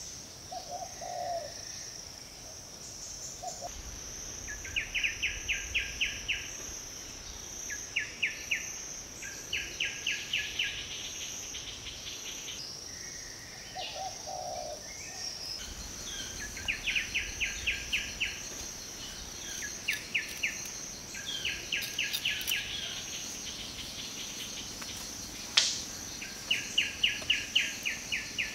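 Forest ambience: a steady high insect drone, with a bird repeating quick runs of about seven sharp notes, roughly five a second, again and again, and a few low calls from another bird. A single sharp click sounds near the end.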